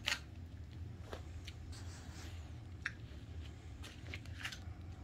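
A few soft, scattered clicks and handling noises from jars and spoons being handled during tasting, over a steady low hum.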